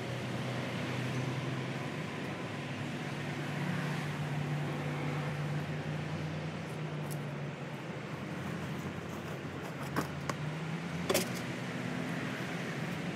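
Steady motor-vehicle engine noise, with a low hum that drifts slightly up and down in pitch. A few short sharp clicks come about ten and eleven seconds in.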